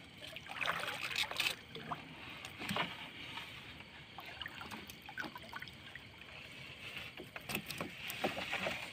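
Wet fishing net being hauled by hand into a small boat, with water splashing and dripping off the mesh and irregular small knocks and patters.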